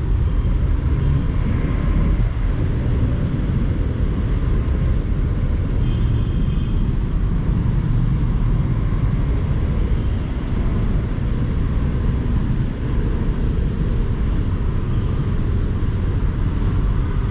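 Onboard sound of a small Honda motorcycle riding slowly through congested traffic: a steady low rumble of engine and road noise.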